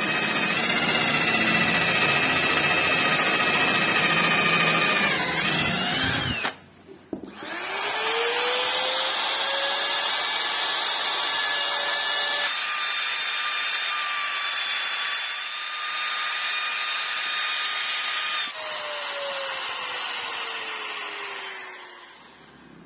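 Electric drill running as it bores a hole for about six seconds, its pitch sagging just before it stops. Then a trim router spins up, runs with a steady whine, and slowly winds down in pitch over its last few seconds.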